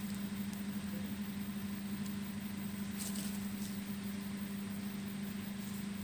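A steady low engine-like hum, like a motor idling, with faint rustling in the brush.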